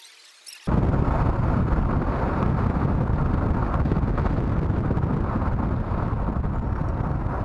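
Heavy wind noise on the microphone: a loud, steady low rumble that starts abruptly under a second in, with street traffic underneath.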